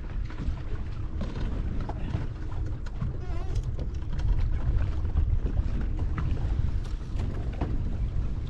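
Wind buffeting the microphone with a steady low rumble, over choppy open water, with faint distant voices now and then.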